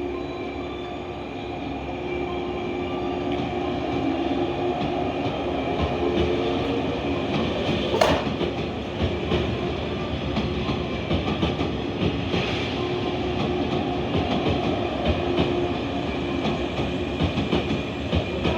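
Electric commuter train running on the rails, with a steady motor and gear hum and wheels clattering over rail joints. There is one sharp click about eight seconds in.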